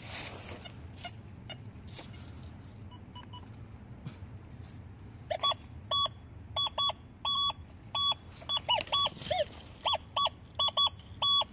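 Metal detector sounding over a dug hole: short electronic beeps, about two a second, starting about halfway through, a few of them sliding lower in pitch. The signal marks a target still buried deep in the hole.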